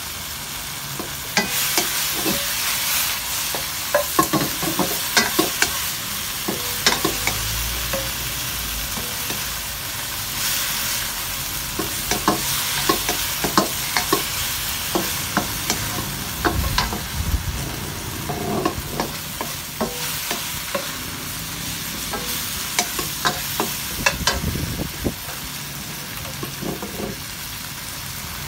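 Shrimp and garlic frying in a nonstick wok: a steady sizzle, with a wooden spatula scraping and knocking against the pan in irregular clicks as it stirs. The stirring picks up about a second and a half in.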